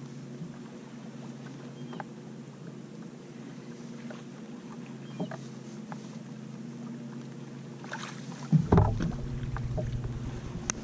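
Steady low hum of a boat's bow-mounted electric trolling motor, with a few light clicks from the rod and reel. About eight seconds in, a sudden loud swish and splashing as a bass is hooked and hauled thrashing to the surface, with a low rumble under it.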